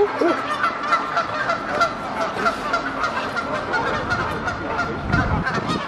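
Canada geese honking over and over, a rapid, unbroken run of short calls with a horn-like sound.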